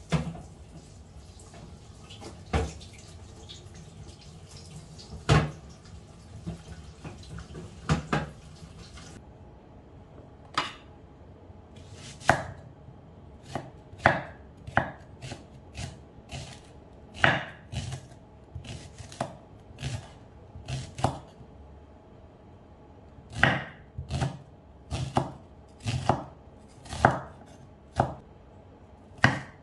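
Tap water running onto cans in a stainless-steel sink, with a few sharp knocks, stopping abruptly about nine seconds in. Then a kitchen knife slices a red onion on a wooden cutting board: sharp knocks of the blade on the board, about one to two a second, with a short pause before the last run.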